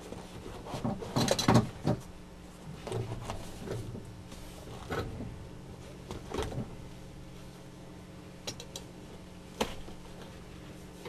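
Handling noises as a vinyl-coated nylon awning flap is rolled around an aluminium spreader bar and bungeed in place: scattered rustles and knocks, the loudest cluster about a second and a half in, with a few sharp clicks later on.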